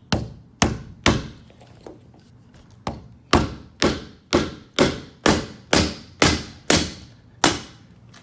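Rubber mallet striking a nylon block held against the aluminum frame rail of a sliding glass door, driving the rail off the glass. Three blows, a short pause, then about ten steady blows at roughly two a second.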